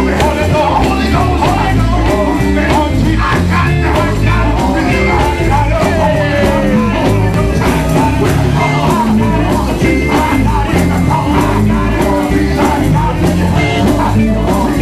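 Live gospel music: a man singing lead into a microphone over a band with bass and a steady beat.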